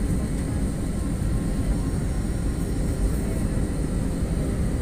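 Steady engine and airflow noise heard inside the cabin of an Airbus A320 airliner descending on final approach, heavy and low, with a faint steady high whine above it.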